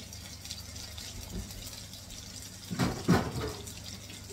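Chicken strips sizzling in hot oil in a frying pan, a steady crackling hiss. About three seconds in, a short burst of louder thumps cuts through.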